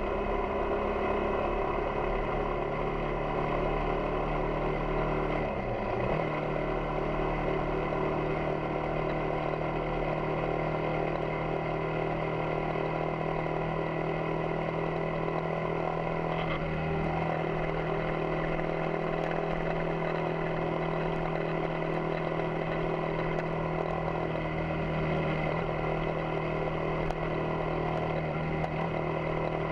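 Yamaha XTZ 250 Ténéré's single-cylinder engine running steadily under way, with a brief dip in pitch about six seconds in and a smaller change in tone a little past halfway.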